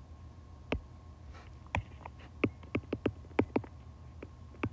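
Stylus tapping and ticking on an iPad's glass screen during handwriting: about a dozen short, sharp taps, few at first and coming quickly from a little under two seconds in, over a low steady hum.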